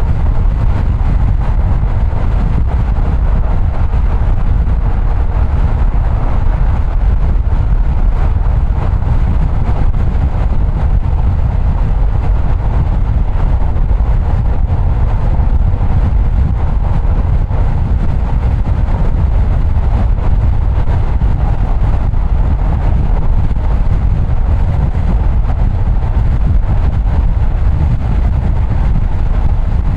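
Steady low rumble of a car being driven: road and engine noise without a break or any sudden sound.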